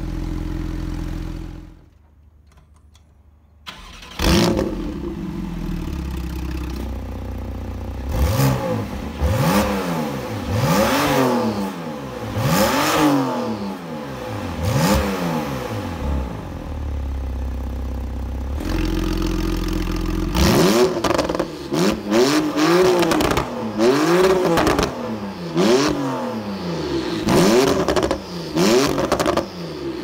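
Porsche 991.2 Carrera GTS twin-turbo flat-six, standing still, idling and then free-revving through its sport exhaust with the catalytic converters replaced by decat pipes. There is a series of about six rising-and-falling revs with the exhaust valves closed, a return to idle, and then a quicker run of about eight sharper blips with the valves open.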